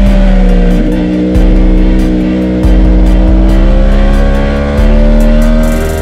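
Onboard sound of a superbike engine pulling hard in fourth gear, its pitch climbing slowly as the bike accelerates out of a turn. A heavy low rumble under it jumps louder about three times.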